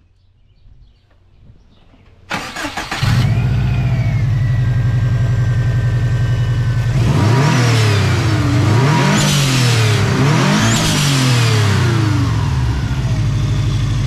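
Subaru WRX wagon's turbocharged flat-four engine cranks briefly and catches about two seconds in, then idles steadily. It is then blipped three times, pitch rising and falling with each rev, before dropping back to idle.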